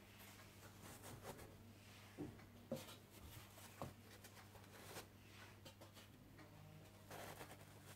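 Near silence: a steady low hum with a few faint clicks and knocks, the clearest a little under three seconds in.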